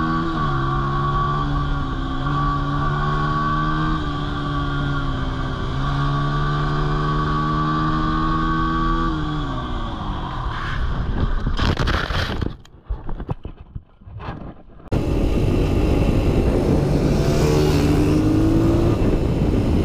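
Dirt bike engine running at a steady cruising speed under the rider, then dropping in pitch as the throttle is eased off about nine seconds in. A few loud bursts of noise follow, then a brief quieter gap. After that the engine is heard again, picking up a little near the end.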